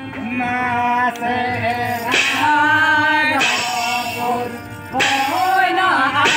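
Harmoniums playing sustained reed chords under a group of men singing a Santali folk song, with a brief break in the singing about five seconds in.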